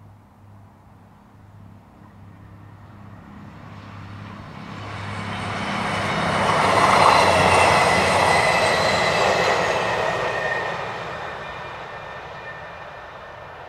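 Arriva CrossCountry Voyager diesel multiple unit passing at speed. Its sound rises steadily, peaks about seven seconds in as a loud rush with high whining tones, then fades as the train moves away.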